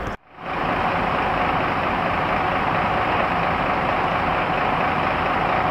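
Fire trucks' diesel engines running with a steady, even drone.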